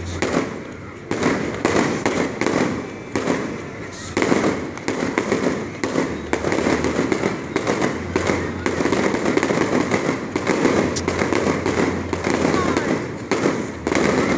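Fireworks display: shells bursting and crackling in quick succession, becoming a dense, continuous crackle from about four seconds in.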